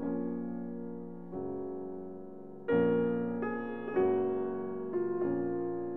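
Slow background piano music: soft chords struck about once a second, each fading before the next.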